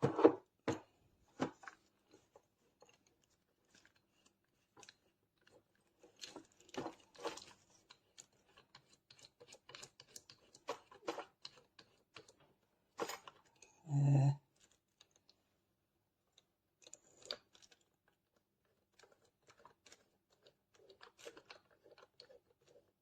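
Sparse clicks and small plastic handling noises of a drill bit being fitted into a cordless drill's chuck and the chuck being turned by hand to tighten it. A brief vocal murmur about fourteen seconds in is the loudest sound.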